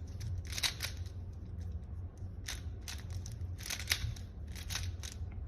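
A 3x3 Rubik's Cube being turned: irregular plastic clicks of its layers being twisted, over a faint steady low hum.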